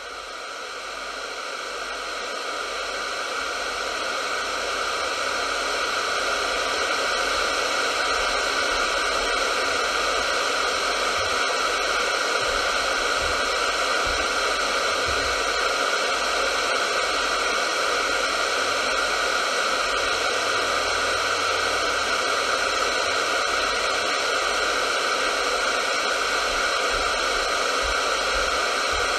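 Radio static: a steady hiss of noise with no station or voice in it, fading in over the first several seconds and then holding level.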